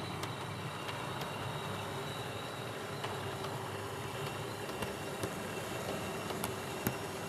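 Hornby OO gauge model HST running along the track: a steady motor and running hum, with scattered sharp clicks of the wheels over rail joints.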